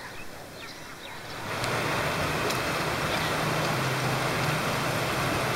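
Steady rush of river water pouring over a small weir, coming in suddenly about a second and a half in, with a low steady hum underneath.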